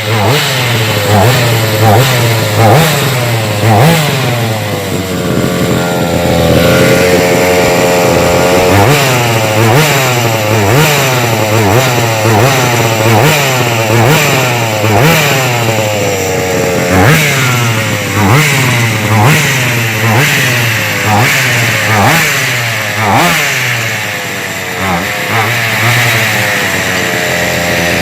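Rovan RC car's 45cc two-stroke gas engine revved over and over, its pitch climbing and dropping about once a second, with a short stretch held at steady speed.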